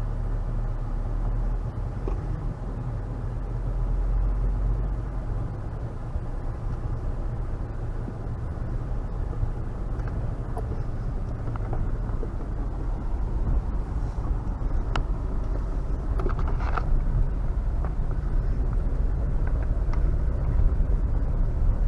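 A motor vehicle driving along: a steady low engine and road rumble, with a few faint rattles or clicks in the second half.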